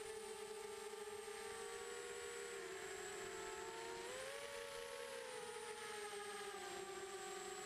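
FPV quadcopter's motors and propellers whining, the pitch shifting with the throttle: it dips, rises about four seconds in, then eases down again.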